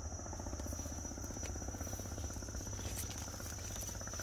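Insects shrilling in a steady outdoor chorus: one continuous high tone, with a rapid, dense pulsing lower down and a few sharp clicks.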